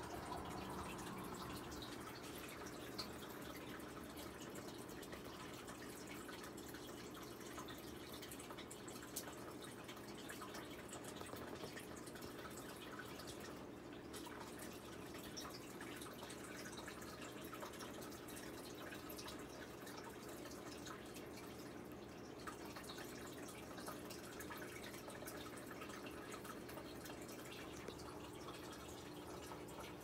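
Faint steady dripping and trickling of water in the tank, over a steady low hum, with scattered small ticks.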